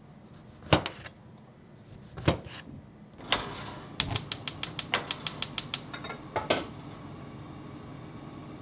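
Kitchen knife cutting king oyster mushrooms on a cutting board: a few single sharp chops. Then a gas stove's igniter clicking fast and evenly, about six clicks a second for nearly two seconds, followed by a couple of knocks and a steady low background noise.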